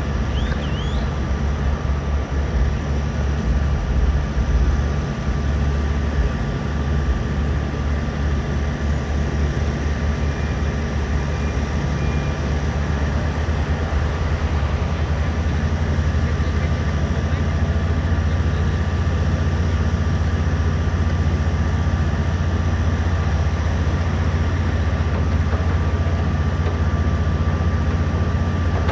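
Diesel engines of Kobelco excavators running steadily while digging dirt: a low, even drone with a thin steady whine above it, a little louder and uneven in the first few seconds.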